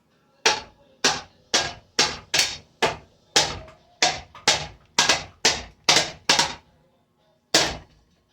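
A ceiling fan being struck hard again and again: about fifteen blows, roughly two a second, each ringing briefly, then a pause and one last blow near the end.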